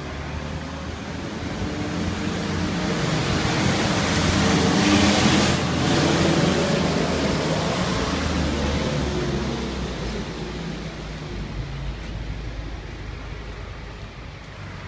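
A road vehicle passing by: engine and tyre noise swelling to a peak about five seconds in, then fading slowly.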